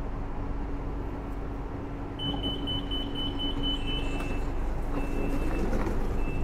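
BTS Skytrain train pulling in alongside the elevated platform, its running noise rising slowly over a steady low hum. From about two seconds in, a thin high-pitched whine comes in short stretches as the train slows to a stop.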